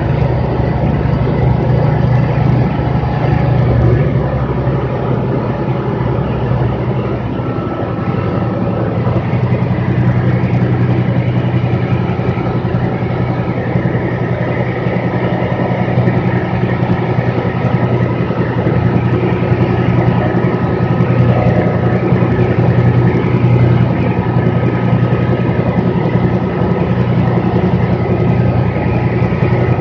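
Single-engine light aircraft's propeller engine droning steadily, heard from inside the cockpit on the landing approach. About seven seconds in the low drone changes and a thin steady whine joins it.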